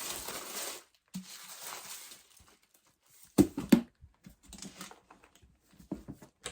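Paper and packaging rustling while items are handled. About three and a half seconds in come two sharp knocks in quick succession, followed by lighter rustling and a few small taps.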